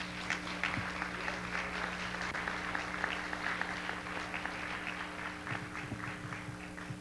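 Audience applauding, the clapping thinning out towards the end, over a steady electrical hum.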